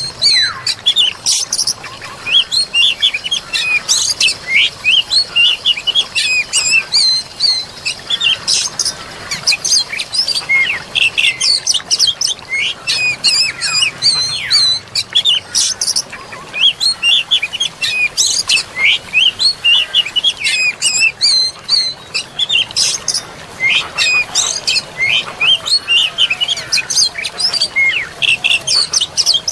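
Dense chorus of songbirds singing: rapid chirps, whistles and trills tumbling over one another without a break, over a steady hiss of flowing water.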